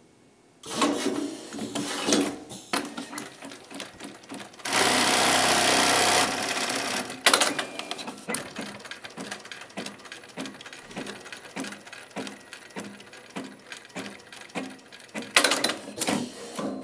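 S-CT250 automatic curtain pinch-pleating machine running a cycle to fold and sew a triple pinch pleat. Mechanical clacks start it off, then comes a loud steady run of about a second and a half. A long series of evenly spaced stitching strokes follows at roughly two to three a second, with a few louder knocks near the end.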